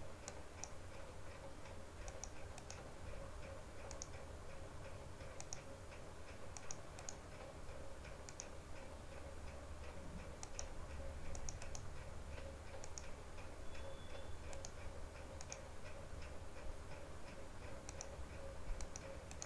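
Computer mouse clicking, single and paired clicks at irregular intervals, as components are placed one by one. A faint steady hum lies under it.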